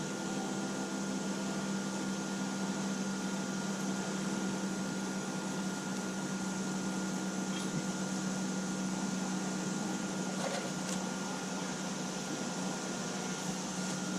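Crane's engine running steadily with a constant hum as the winch lifts the cut trunk section.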